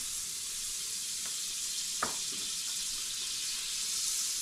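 Butter sizzling on high heat in a cast-iron skillet as a sandwich toasts in it: a steady high hiss. There is one sharp click about two seconds in.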